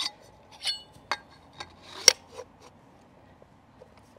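Metal post-driver adapters clinking and knocking together as one adapter is pulled out of the set and swapped: about six sharp metallic clinks, some ringing briefly, the loudest about two seconds in.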